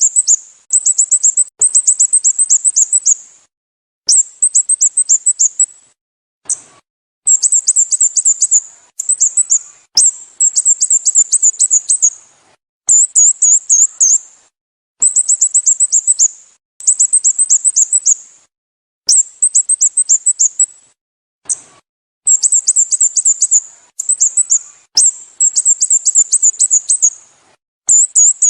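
Sooty-headed bulbul (Pycnonotus aurigaster) calling: quick series of sharp, high chirps in bursts of about a second, repeated over and over with short pauses.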